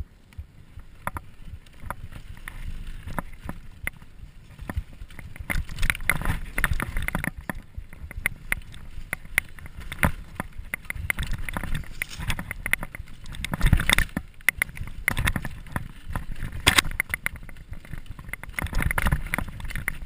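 Mountain bike ridden down a dirt forest trail: tyres rumbling over dirt and roots, with the bike rattling and knocking sharply over bumps. It gets louder and rougher a few seconds in, with the hardest knocks near the middle and toward the end.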